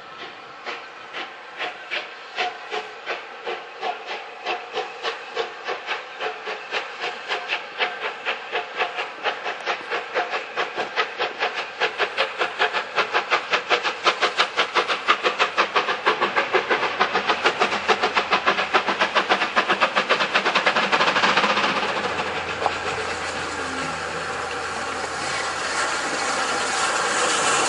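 Steam locomotive pulling away with a train: its exhaust chuffs start about two a second and get steadily faster and louder. Later the chuffs run together into a steady hiss and rumble, which swells near the end as the engine passes close by.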